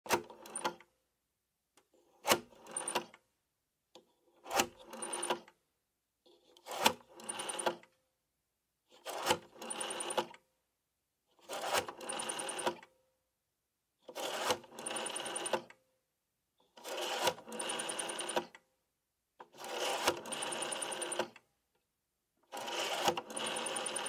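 A wall telephone's rotary dial, close up, dialed digit after digit. Each digit is a click as the dial is pulled round, then a whirring, ticking return as it spins back. Each return runs longer, with more ticks, than the one before.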